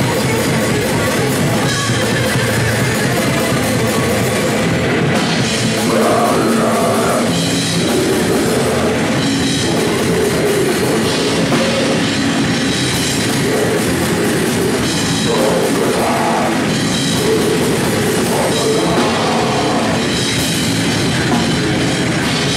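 Live death metal band playing at full volume: distorted electric guitars, bass and fast drum kit, with a dense, unbroken wall of sound.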